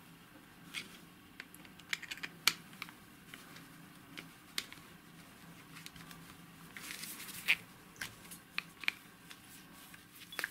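Pointed steel tool scraping and clicking against the metal of a servomotor's feedback potentiometer and housing as a small locking part is forced loose. Irregular sharp clicks and short scrapes, with a busier run of scraping about seven seconds in.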